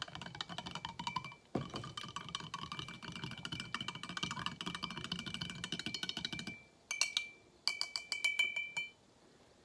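A spoon stirring creamer into coffee in a tall glass mug, clinking quickly against the glass, which rings with a high tone. The stirring stops about six and a half seconds in and is followed by a few sharper clinks of the spoon on the glass.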